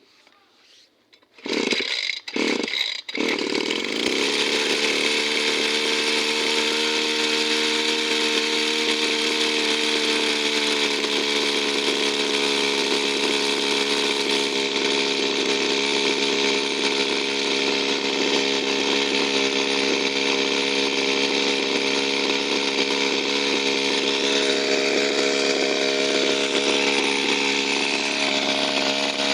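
Small two-stroke engine starting: it fires in a few short sputters, catches about three seconds in, and then runs steadily at a constant speed.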